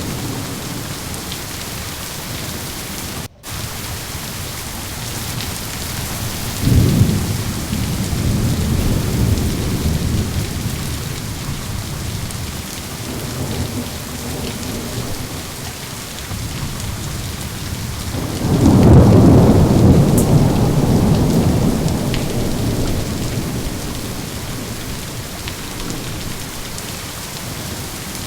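Steady heavy rain with rolling thunder. One rumble breaks in sharply about seven seconds in, and a longer, louder roll builds about eighteen seconds in and slowly fades. The sound drops out for a split second about three seconds in.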